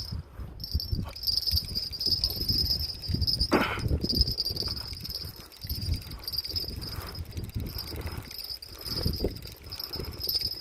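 Insects trilling steadily at a high pitch over an uneven low rumbling noise, with a brief swish about three and a half seconds in.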